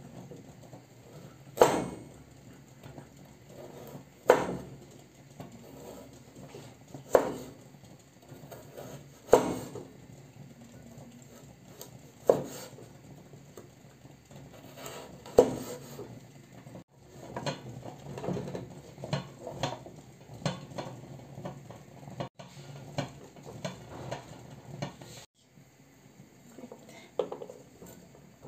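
Chef's knife cutting carrots on a wooden cutting board: single hard chops through the carrot every two to three seconds, then a run of quicker, lighter cuts in the second half as the pieces are sliced into strips.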